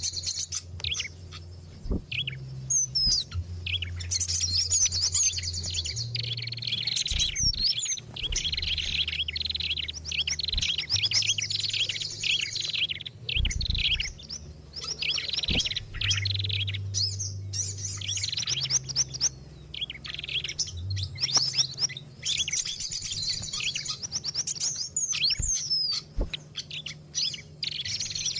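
Busy, overlapping chirps and fast trills of several small songbirds calling over one another in clusters with short gaps: a bird-lure call mix made to draw wild small birds. A low steady hum runs underneath.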